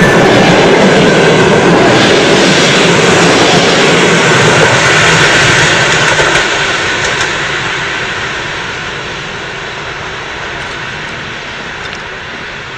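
A passenger train running past and away, a steady rushing noise that slowly fades as it recedes.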